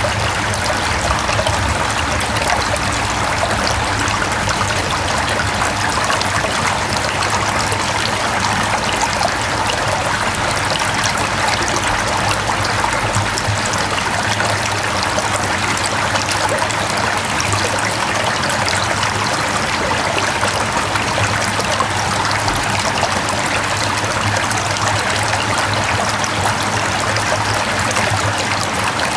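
Mountain stream flowing over rocks, a steady rushing and trickling of water with no change throughout.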